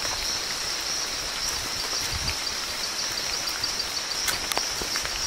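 Rainforest ambience: a steady high-pitched insect drone over an even hiss of rain, with a few faint clicks and low bumps.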